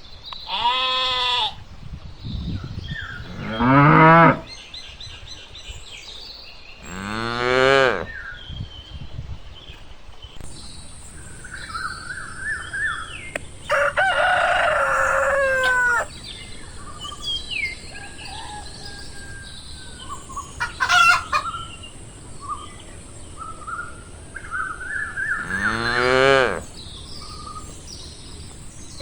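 A farm soundscape of animal calls: several long, drawn-out livestock calls spaced through the stretch, a rooster crowing midway, and short bird chirps in between. A steady high hiss joins about ten seconds in.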